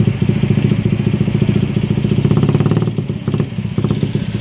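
Loaded dump truck's diesel engine labouring up a steep dirt grade, a low, rapid, even throb.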